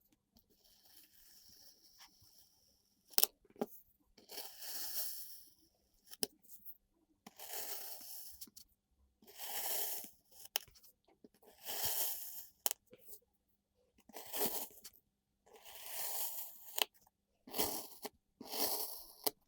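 Kinetic sand being sliced: about eight crunching, crumbling cuts, one every second or two, with a few sharp clicks between them and a softer grainy rustle in the first few seconds.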